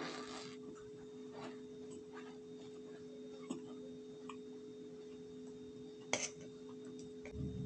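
Scattered soft crunches of cornstarch, the strongest just after the start and about six seconds in, over a steady hum.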